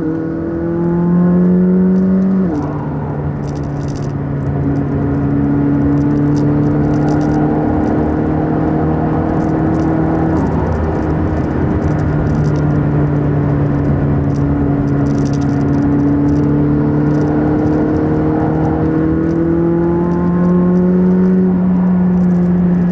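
McLaren 600LT's twin-turbo V8 heard from inside the cabin while driving, the engine note rising and falling with speed and stepping down in pitch at upshifts about two and a half seconds in and again about ten seconds in, over a steady hiss of road and tyre noise.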